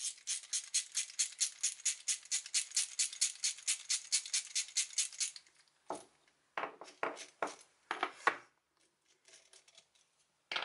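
A 13 mm ratcheting spanner clicking rapidly and evenly, about seven clicks a second, on the nut of a home-made threaded-rod bearing press; the clicking stops after about five seconds. Then come a few separate light metal clinks as the press parts are handled.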